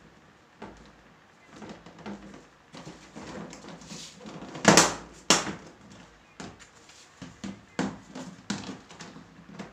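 Hard plastic cabinet panels knocking and clattering as they are handled and laid in place, with a string of light knocks and two louder knocks close together about five seconds in.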